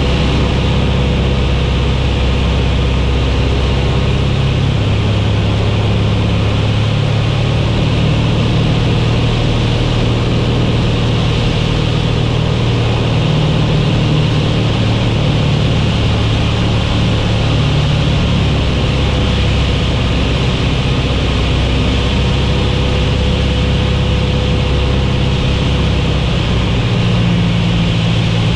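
Cockpit noise of a Van's RV-8's piston engine and propeller on final approach: a loud, steady drone. The engine note shifts about four seconds in and again near the end.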